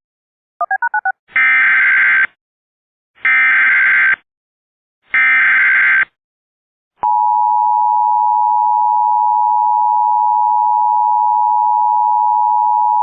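Emergency Alert System tones. Four very quick beeps come first, then three one-second screeching bursts of the SAME digital header, each followed by about a second of silence. About seven seconds in, the steady two-tone EAS attention signal starts and holds, announcing a civil danger warning.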